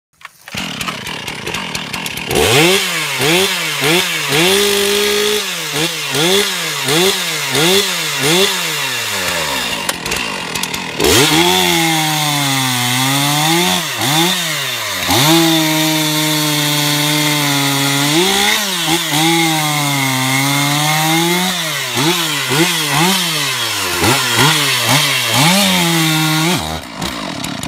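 Stihl chainsaw running and cutting into a log, making sample cuts to show the chain is sharp. Early on the engine revs up and down about once a second. From about halfway it holds longer at high revs, the pitch sagging and climbing as the chain bites. The saw stops just before the end.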